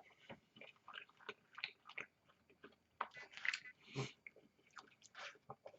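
A person chewing a mouthful of food close to the microphone: faint, irregular wet clicks and soft crunches, a little louder about three and a half and four seconds in.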